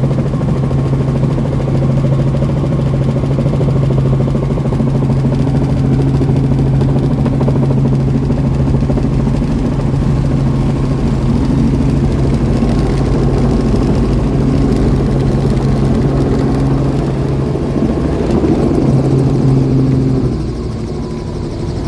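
Helicopter running steadily: a loud, even drone with a low hum that drops in level near the end.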